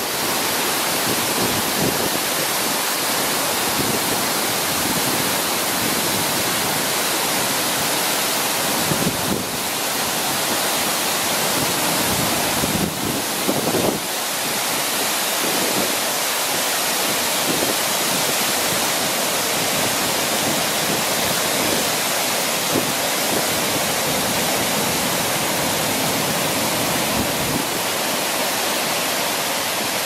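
Uchan-Su mountain waterfall in full spring flow, water falling and cascading over rocks: a steady, even rush.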